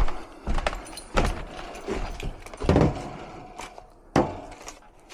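A series of separate knocks and clanks, about six over a few seconds, with rattling between them: hard metal parts, a new HVAC blower wheel and its housing, being handled and set in place.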